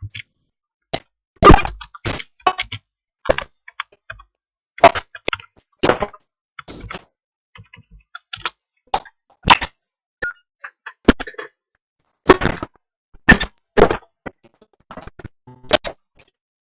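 Sharp, irregular cracks and knocks coming through a Viber internet voice call, about one a second, with dead silence between them. Friends of the caller take them for line interference.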